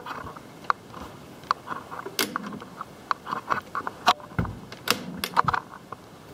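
Irregular light clicks and knocks from a hand working a wooden pantry cabinet door and its simple latch.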